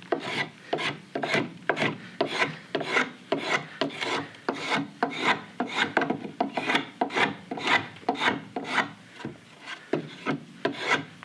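Hand blade shaving green sycamore in quick repeated strokes, about two a second, each a short scrape. The wood is clamped in a shaving horse.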